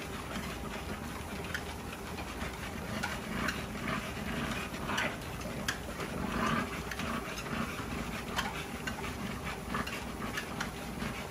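An American bully panting as it walks on a running treadmill, over the steady hum of the treadmill's motor and belt, with scattered light taps.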